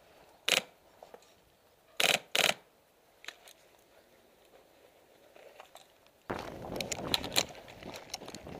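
Three short, sharp clacks, the last two close together, then, from about six seconds in, footsteps and rustling through grass and weeds.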